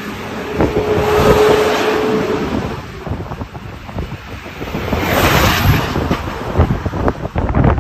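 Strong, gusty storm wind buffeting the microphone in irregular surges. A steady tone sounds for about two seconds near the start.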